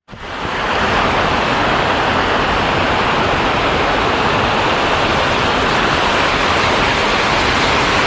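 Heavy rain pouring down in a steady, dense hiss, fading in over the first half second.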